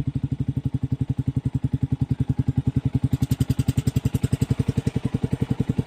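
Motorcycle engine idling through an aftermarket MVR1 exhaust pipe, a steady, even putt of about a dozen exhaust pulses a second.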